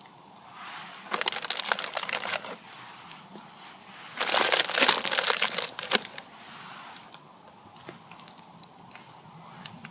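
Packaging crinkling as it is handled, in two bursts of about a second and a half each, a few seconds apart.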